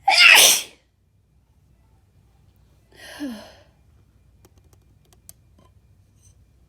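A woman's loud, sudden sneeze, part of an induced sneezing fit. About three seconds later she gives a softer sigh that falls in pitch.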